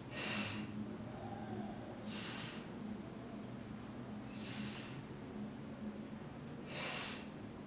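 A woman's sharp breaths out, four of them about two seconds apart, one with each sumo squat repetition.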